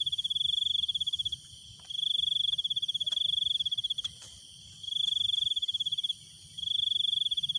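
A cricket trilling close by in the grass: a high, finely pulsed trill in long bouts with short pauses between, breaking off about a second in, about four seconds in and about six seconds in.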